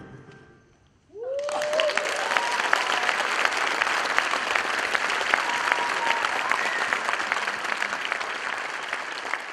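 The last of the music fades out, then about a second in an audience breaks into sustained applause with a few whoops and cheers.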